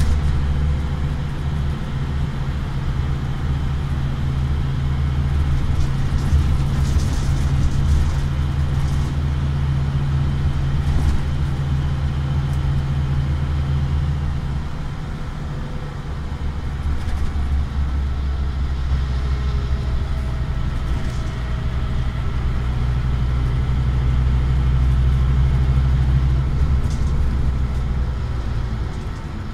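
Scania OmniCity bus's diesel engine and drivetrain heard from inside the passenger saloon while under way: a steady low drone that eases off about halfway through, then builds back up.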